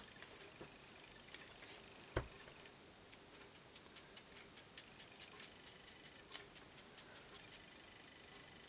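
Faint handling sounds of craft work on a wooden table: a soft knock about two seconds in, then a string of light ticks and taps, roughly two or three a second, as paper pieces and an ink pad and blending tool are moved and picked up.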